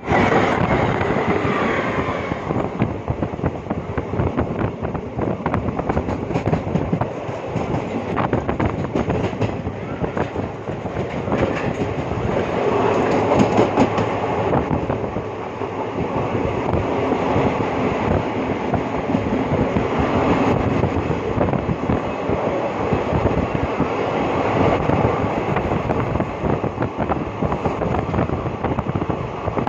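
Train running on the rails, heard from inside the coach at an open window: a steady rumble and clatter of wheels over the track, with a high squeal in the first two seconds.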